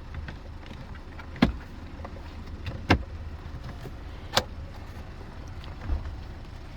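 Four sharp knocks and clicks about a second and a half apart, from the plastic cabin air filter cover and trim being handled and seated, over a low steady hum.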